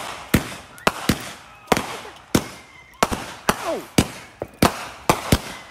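Consumer aerial fireworks going off in quick succession: a string of sharp bangs, about two a second, each followed by a short echoing tail.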